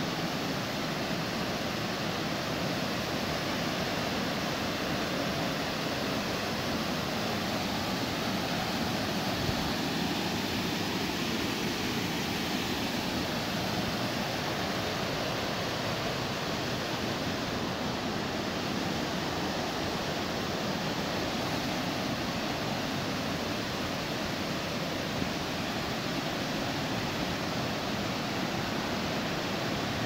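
Steady rush of water tumbling over a series of small rock cascades.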